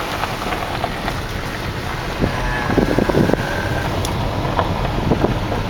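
Car rolling slowly along an unpaved gravel road: a steady rumble of tyres and engine, with scattered crackles of stones under the tyres about halfway through, and wind noise on the microphone.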